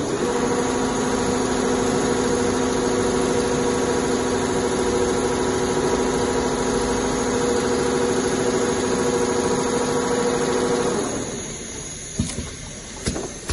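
Two-head CNC leather sewing machine stitching at a steady speed with an even mechanical hum. Near the end it stops, followed by a few short clicks.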